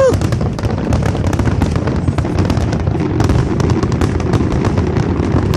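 Fireworks going off in a dense, continuous crackle of rapid pops over a steady low rumble.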